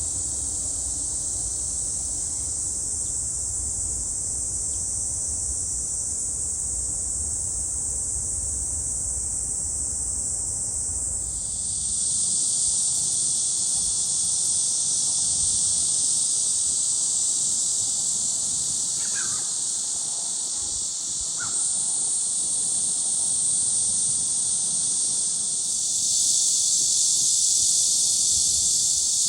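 Cicadas singing in a dense, steady chorus, which grows louder about a third of the way in and again near the end. Two faint short calls sound briefly in the middle.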